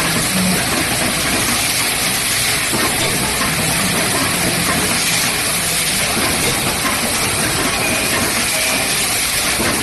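Automatic rotary cap assembly machine running: a steady, dense mechanical noise with no clear beat.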